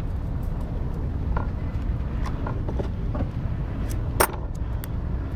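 Light clicks and taps of pyrotechnic cartridges and tape strips being handled on a wooden workbench, with one sharp click about four seconds in, over a steady low rumble.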